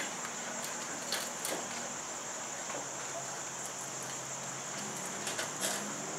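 Steady high-pitched insect chorus, with a few short sharp clicks about a second in and again near the end.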